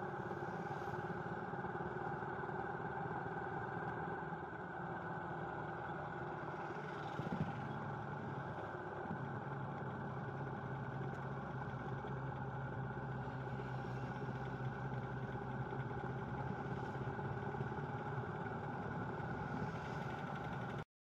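Engine of a vehicle running steadily while driving along a road, with tyre and road noise. There is a brief louder knock about seven seconds in, a steadier low hum after about nine seconds, and the sound cuts off suddenly just before the end.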